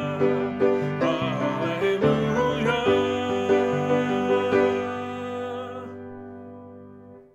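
Closing bars of a hymn tune: notes moving every half second or so for about three seconds, then a held final chord that fades out over about four seconds and stops.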